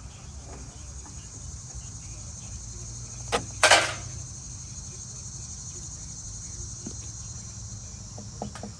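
Steady high chirring of crickets, with a sharp click about three seconds in and, just after it, a short loud rasping burst lasting under half a second.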